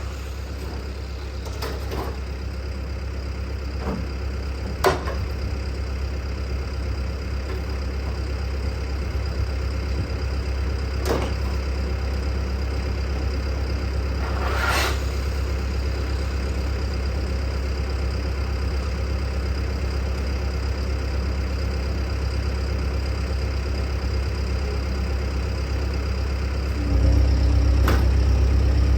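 An engine idling steadily with a low rumble, with a few short sharp knocks scattered through; the rumble gets louder about 27 seconds in.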